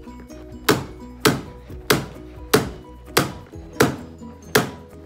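Corded electric staple gun firing staples through stair carpet, seven sharp shots at a quick, slightly uneven pace of nearly two a second.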